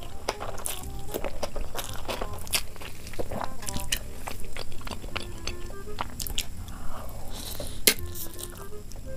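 Close-miked eating sounds from a forkful of stir-fried vegetable noodles: biting and chewing with many short sharp clicks and crunches. A soft background melody plays under them.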